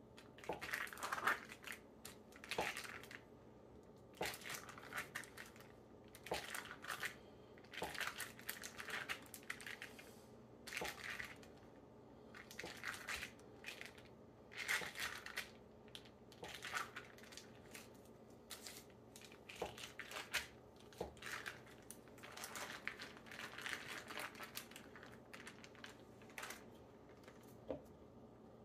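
Foil cream-cheese wrapper crinkling in short irregular bursts, with small knife clicks, as the block is sliced on the foil and the wrapper is handled.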